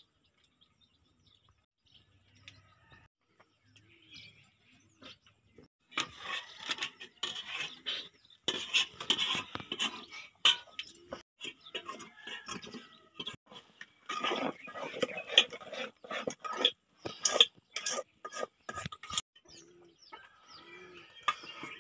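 A metal spoon stirring and scraping around an aluminium pot of ground-rice batter, a fast irregular clatter of metal on metal. It starts about six seconds in and dies down near the end.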